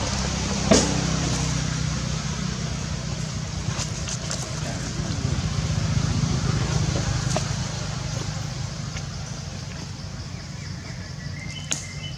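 A motor vehicle's engine running with a low, steady hum that grows louder toward the middle and then fades, as if passing by. There is a sharp click about a second in.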